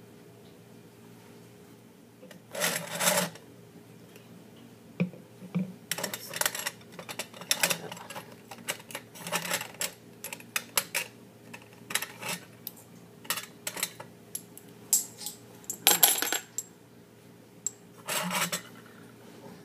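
Glass lab ware, a graduated cylinder and test tubes among it, clinking and knocking as it is picked up and set down. A scatter of sharp clinks and rattles starts about two and a half seconds in, with the loudest about sixteen seconds in.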